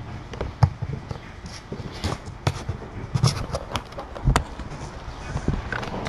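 A cat rubbing against the camera: its fur brushes and bumps the microphone, making a rustle with irregular knocks.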